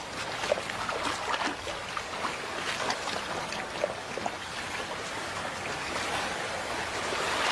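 Shallow river running over stones: a steady rushing hiss with many small splashes and trickles.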